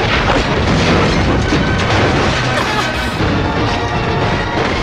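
Action-film soundtrack: music running under repeated booms and crashing impacts.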